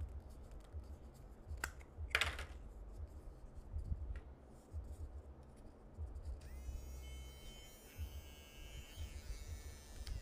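Handling noise from an electric pet nail grinder and its packaging: a low rumble with a few sharp clicks in the first four seconds. From about six seconds in, a faint high whine comes in, rising briefly as it starts.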